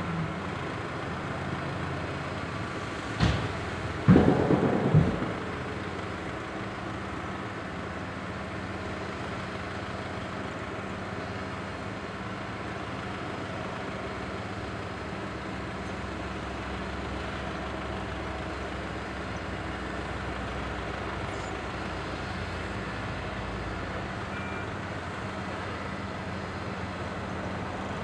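Heavy diesel engines of a Volvo FH16 tipper truck and an asphalt paver running steadily at low revs. There is a sharp knock about three seconds in, then a cluster of louder heavy knocks a second later.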